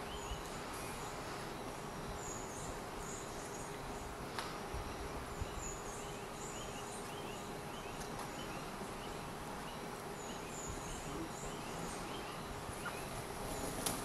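Forest ambience: a steady hum of insects, with a bird giving quick runs of short rising notes and thin high chirps from another bird.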